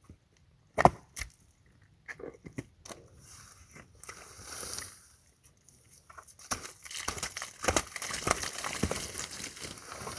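Crunching, snapping and crackling of a large animal, likely a moose, moving close to the microphone at a forest mud hole: scattered sharp snaps at first, then a dense run of crackling over the last few seconds.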